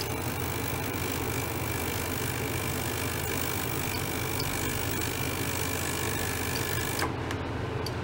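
Small ultrasonic cleaning bath running: a steady low hum with a hiss over it and a faint high whine. About seven seconds in there is a click and the upper hiss cuts off suddenly.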